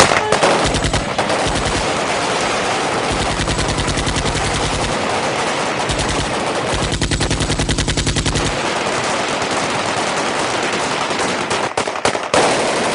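Many automatic rifles and machine guns fired into the air at once, Kalashnikov-type rifles and BKC machine guns among them. The bursts overlap into near-continuous rapid gunfire, with a few more separate shots near the end.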